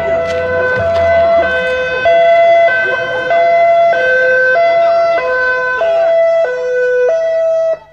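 Two-tone emergency-vehicle siren alternating between a high and a low note, each held a little over half a second. It cuts off suddenly near the end.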